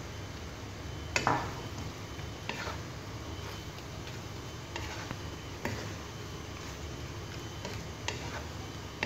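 Wooden spatula stirring shrimp through a creamy sauce in a stone-coated wok, with a handful of short knocks and scrapes against the pan, the sharpest about a second in.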